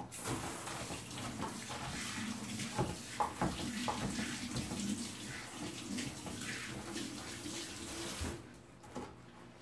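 Kitchen tap running full while hands are washed under it, stopping suddenly about eight seconds in. Now and then a knife knocks on a wooden cutting board as kimchi is chopped.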